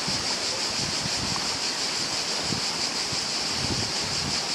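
Steady rush of river water spilling over a shallow ledge into white-water rapids, with wind buffeting the microphone now and then.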